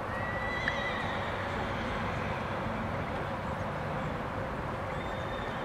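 A horse whinnying once near the start, a high held call lasting about half a second, over a steady hiss. A shorter high tone comes near the end.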